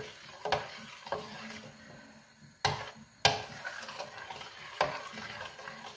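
A spoon stirring a thick, cooking cheese mass in a stainless steel pot, scraping and knocking against the pot several times, the two loudest knocks near the middle.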